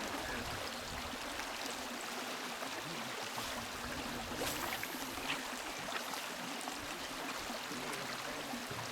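River water rushing steadily, with a few faint ticks over it.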